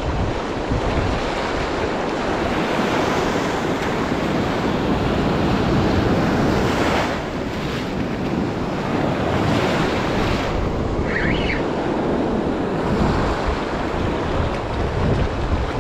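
Shallow beach surf washing in and breaking continuously, with wind buffeting the microphone.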